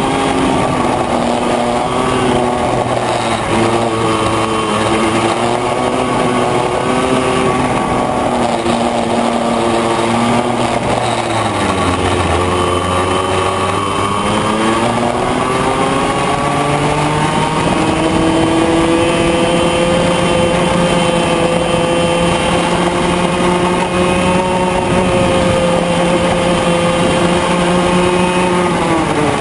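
Yamaha 100J 100cc two-stroke kart engine running at racing revs under the driver. The revs drop about twelve seconds in for a corner, climb back up, hold high and steady down the straight, and fall off right at the end.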